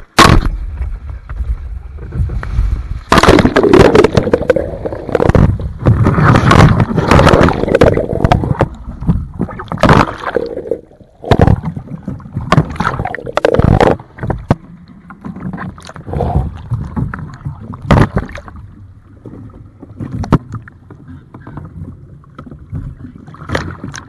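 Camera handling noise: fingers and fabric rubbing and knocking right on the small camera's microphone in loud, irregular rustles and thumps. The noise is dense through the first half, then thins to a few separate knocks.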